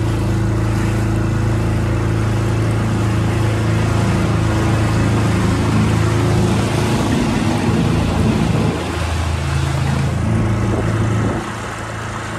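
Dinghy's outboard motor running steadily at cruising speed, with water and wind noise over it. It drops a little in level about two-thirds through and again near the end.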